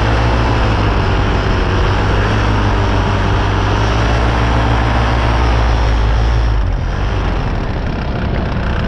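Paramotor engine and propeller running steadily at power, then easing off about seven seconds in as the powered paraglider comes in to land.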